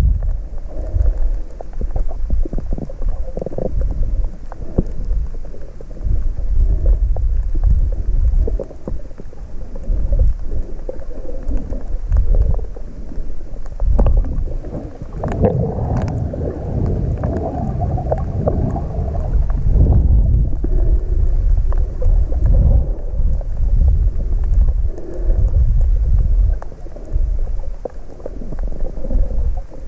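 Underwater sound from a camera held below the surface: a loud, muffled rumble and sloshing of moving water against the housing, rising and falling, with gurgling and small clicks.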